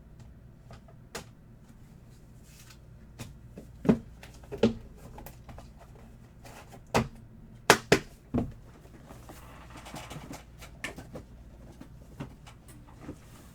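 Trading cards and hard plastic card holders being handled and set down on a table: a series of sharp clicks and taps, loudest about four seconds in and again around seven to eight seconds in, with a brief soft rustle around ten seconds in.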